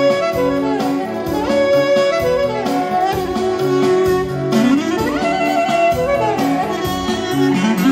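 Clarinet playing an ornamented melody, sliding between notes, over a band backing with a steady beat.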